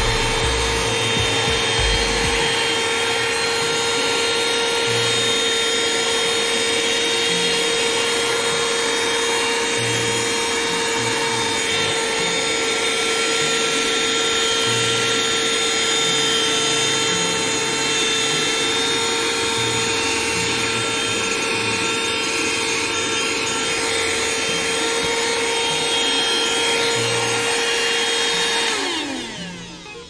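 Cordless handheld car vacuum cleaner running at full power with a steady whine, sucking up scraps of paper and grit from a rubber floor mat. Near the end it is switched off and the whine falls in pitch as the motor spins down.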